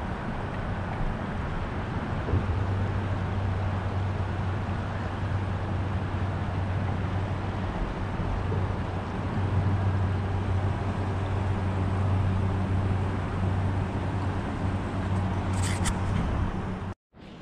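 Steady rushing noise of wind and a high-running river flowing past rocky shoals, with a low rumble under it; it cuts off suddenly near the end.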